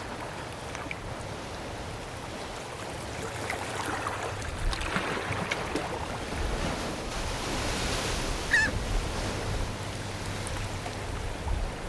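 Surf washing in and around tidepools, with a low wind rumble, swelling over the middle of the stretch. A seagull gives one short call about two-thirds of the way through.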